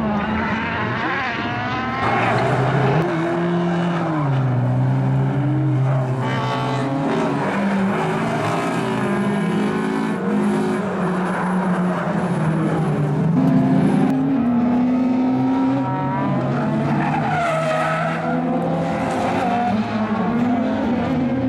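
Rallycross race cars running flat out: several engines overlap, revving up and down through gear changes as they pass, with tyres skidding and squealing on the loose surface.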